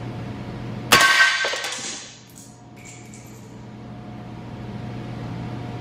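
A single shot from a suppressed 7.62×39 AR rifle fired into a bullet trap about a second in. It is a sharp report with a metallic clang that rings and fades over about a second, followed by a few fainter metallic clicks. A steady low hum runs underneath.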